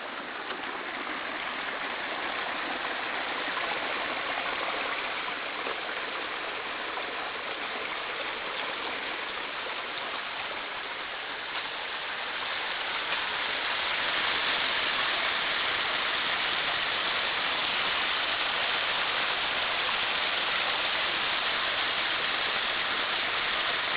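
Storm runoff after a heavy rain: muddy rainwater rushing and pouring over grass and down a gully in a steady rush, louder from about halfway through.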